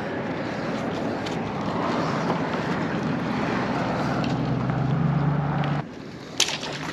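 Steady rushing of road traffic and wind on the microphone, with an engine hum that rises slightly near the end before the noise cuts off abruptly. A single sharp knock follows.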